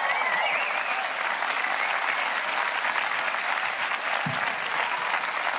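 A large seated audience applauding steadily at the end of a song.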